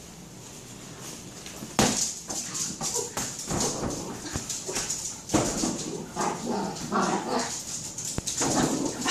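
A small terrier attacking a large inflatable rubber ball: a sharp knock about two seconds in, then rapid clicks and knocks of the ball and the dog's claws on the vinyl floor, with the dog's excited whines and barks from about halfway through.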